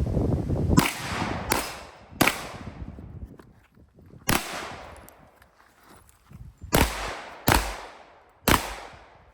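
Canik METE SFT Pro 9mm pistol fired seven times in an uneven string: three quick shots, a pause, a single shot, then three more. Each report has a short ringing tail. The gaps come as the shooter moves between targets.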